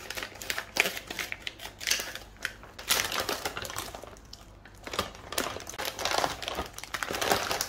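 Kitchen scissors snipping through a plastic food bag, then the plastic packaging crinkling and rustling as the packets inside are pulled out and handled, in quick irregular crackles.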